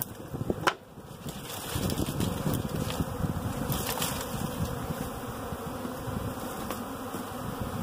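Honey bee swarm buzzing steadily as a cloud of bees flies around the hive box, searching for their queen. A sharp click sounds just under a second in.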